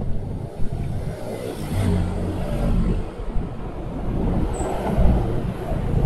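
Yamaha MT-07's parallel-twin engine running, its pitch rising and falling.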